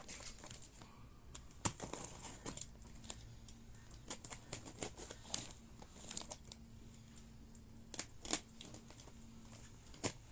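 Box cutter slicing and scraping through packing tape on a cardboard parcel. Irregular short scratches and clicks come from the blade, with the tape and cardboard crinkling.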